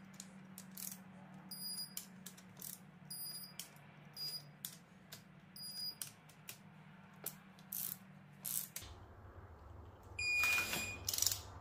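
Digital torque wrench giving short high beeps as cylinder head bolts reach the 50 N·m first-step torque, with sharp ratchet clicks in between. The beeps come about every second and a half in the first half, and a lower beep sounds near the end over a brief burst of noise.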